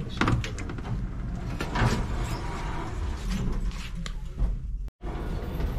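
Passenger lift car running between floors: a steady low rumble with a few knocks and clicks, broken by a sudden short gap near the end.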